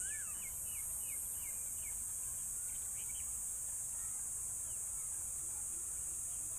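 Steady high-pitched insect chorus, with a bird giving a quick run of about seven short falling chirps in the first second and a half and a few fainter calls later.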